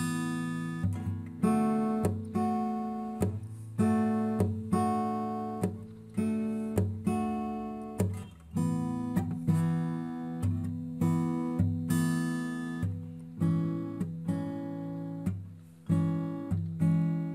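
Background music: acoustic guitar playing strummed chords, each struck sharply and left to fade.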